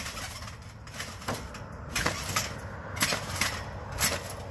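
Trampoline being jumped on: sharp thumps and spring creaks from the mat and springs, about once a second and sometimes in quick pairs, over a steady low rumble.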